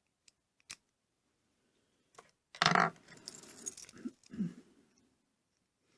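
Small metal parts of a car door lock mechanism clinking as they are handled: a few light clicks, then a loud clatter about two and a half seconds in, followed by scraping and a couple of knocks.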